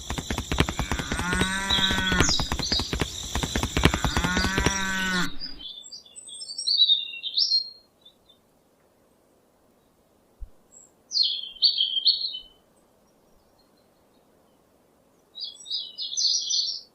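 A cow mooing twice, within a dense stretch of sound that starts and stops abruptly over the first five seconds. Then small birds chirp in three short bursts.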